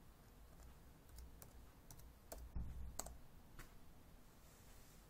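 Keys being typed on a Toshiba Satellite L750D laptop keyboard: faint, irregular key clicks while a password is entered, with a louder knock about two and a half seconds in.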